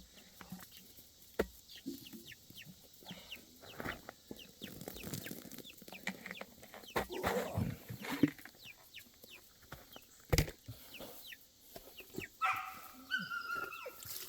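Chickens clucking and giving short high peeps throughout, with scattered knocks and clatter from handling their feeder and waterer; the loudest knock comes about ten seconds in.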